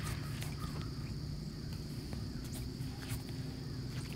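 Insects droning steadily at one high pitch, with a low steady hum underneath and faint irregular clicks.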